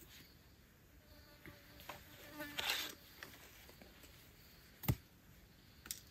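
Insects buzzing. About two and a half seconds in there is a louder, half-second rustling burst, and two sharp clicks come near the end.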